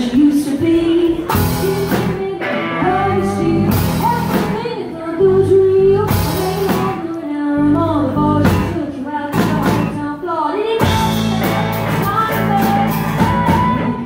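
Live band song: a woman singing with acoustic guitar, backed by electric bass and a drum kit.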